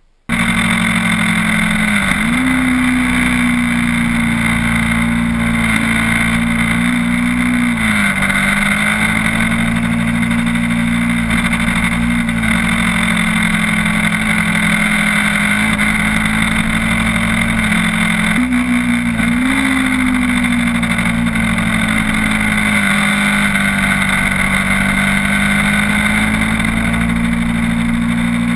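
Sport motorcycle engine heard from a camera mounted on the bike, running at mostly steady revs while riding along, its note dipping and coming back up a few times as the throttle changes.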